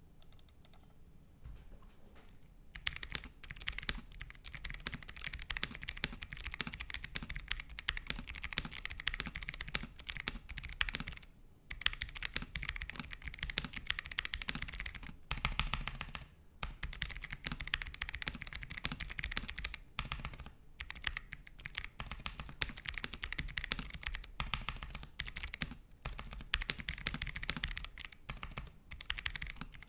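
Typing on a Pressplay Rover84 v3 gasket-mount mechanical keyboard with clicky Kailh Box White switches: a fast, dense stream of sharp key clicks that starts about three seconds in and stops briefly a few times.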